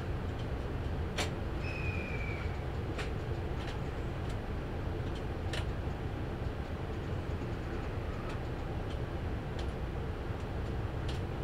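Steady low rumble of railway station ambience on a platform, with a few sharp clicks and one short whistle-like tone about two seconds in.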